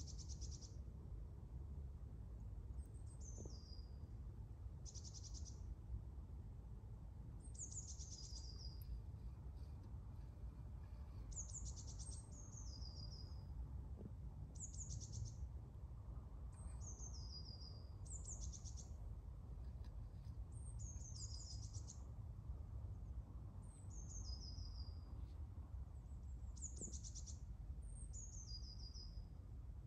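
A small songbird calling over and over: short high stuttering trills alternating with quick falling whistles, over a steady low rumble of background noise.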